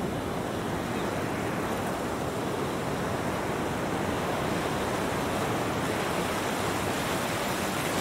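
Ocean surf washing over shallow water at the shoreline, a steady rush of water noise.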